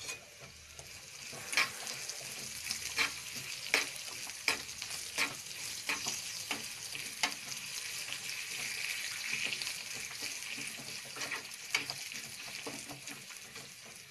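Curry leaves, green chillies, ginger and cashews sizzling in hot ghee in a small tempering pan, the hiss swelling around the middle. A spoon clicks against the pan about once every 0.7 s as the tempering is stirred.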